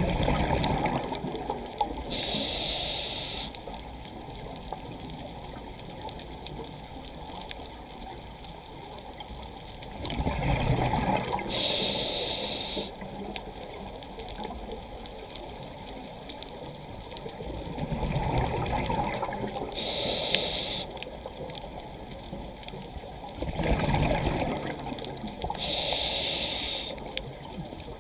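Scuba diver breathing through a regulator underwater: a high hiss of air on each inhalation and a low bubbling rumble of exhaled air, four breaths spaced several seconds apart, over the steady rush of water.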